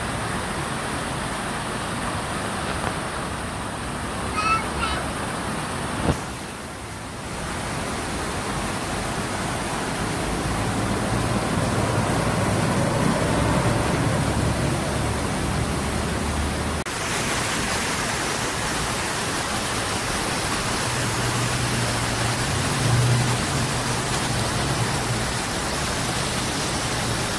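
Steady outdoor noise hiss with traffic, and a vehicle engine's low hum from about ten to seventeen seconds in and again after twenty seconds. A few brief high chirps come near four seconds in.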